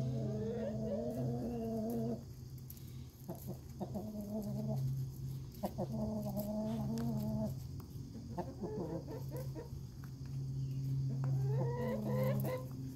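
Chickens calling: a series of about five drawn-out, wavering calls, each a second or two long, over a steady low hum.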